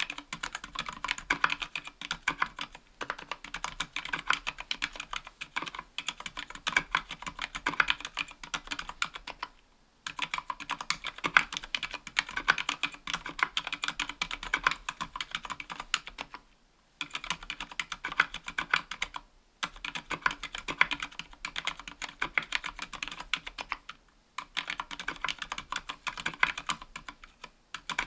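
Continuous fast typing on a 60% aluminium-plated mechanical keyboard with silenced Gateron Silent Black Ink linear switches and GMK keycaps: a steady patter of soft key clicks, broken by a few brief pauses.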